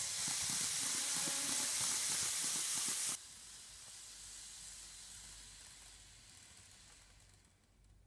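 N gauge model train running past close by, a loud hiss of its motor and wheels on the rails. The hiss drops off suddenly about three seconds in, then fades as the train moves away up the track.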